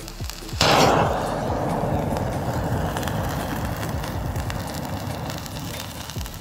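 Potassium permanganate and glycerin reaction igniting: a sudden loud hiss about half a second in, then steady hissing with crackling as it burns, slowly fading.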